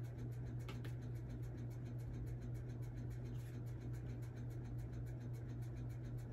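Quiet room tone with a steady low hum, and a faint click just under a second in.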